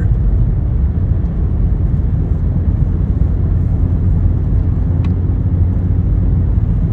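Steady low rumble of a car being driven, heard from inside the cabin: engine and tyre noise on the road.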